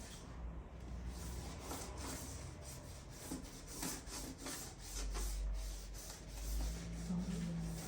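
Sharp-edged plastic wheel tool scraping along the iMac's screen edge, cutting through the display adhesive: uneven rasping and rubbing scrapes.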